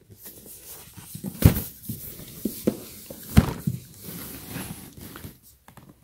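A cardboard box holding a set of frying pans being handled and turned over on a carpeted floor, with rustling and scraping and two dull thumps, one about a second and a half in and another about two seconds later.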